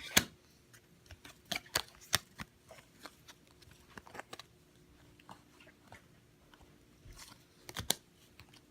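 Baseball trading cards being handled and flipped through: scattered sharp clicks and snaps, the loudest just after the start and another near the end.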